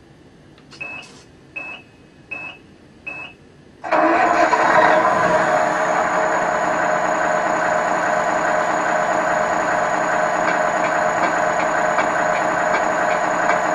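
Model truck sound unit (Multi Function Control Unit 56511) through its small speaker: four short beeps, then about four seconds in a simulated diesel truck engine starts and settles into a steady idle, with a faint high whine. Near the end, faint regular ticking comes in with the hazard lights.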